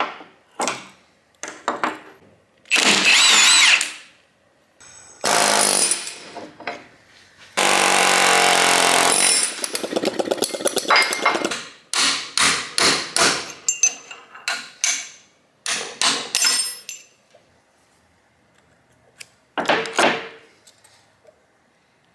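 Metal shop work on a suspension part: bursts of power-tool noise, then a quick run of sharp hammer blows on steel that ring, in the middle of the stretch, as a press-fit ball joint is knocked out of its control arm.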